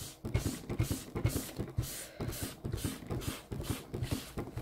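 A tissue rubbing black soft pastel into paper, quick back-and-forth scrubbing strokes about three a second.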